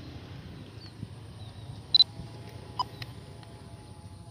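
Outdoor ambience: a faint low rumble from the distant passing train, with a steady high insect whine. One short, sharp chirp about two seconds in.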